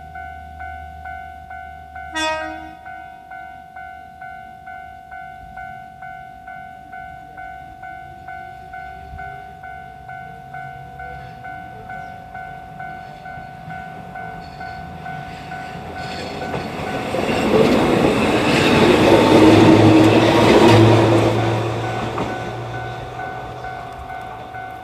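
Level-crossing warning bell dinging steadily, about one and a half strikes a second, with a short horn blast about two seconds in. From about fifteen seconds the Kishigawa Line 'Omocha Densha' electric train approaches and passes over the crossing. Its wheel and motor noise is loudest around eighteen to twenty-one seconds, then eases off while the bell keeps ringing.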